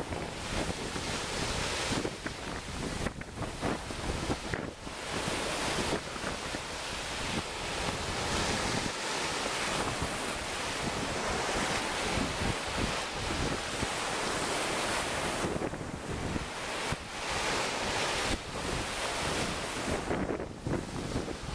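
Sea waves washing onto the beach at high tide, with wind buffeting the microphone in gusts that swell and drop.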